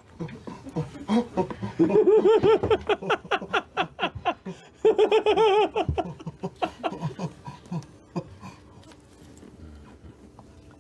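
People laughing in quick repeated bursts, loudest about two and five seconds in, then dying away over the last few seconds.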